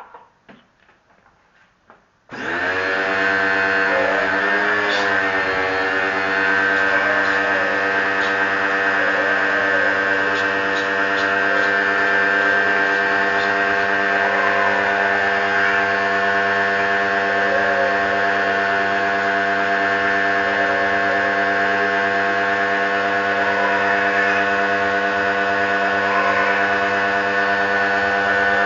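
Electric pressure washer switched on about two seconds in and running with a loud, steady motor hum; its pitch sags briefly just after starting, then holds even.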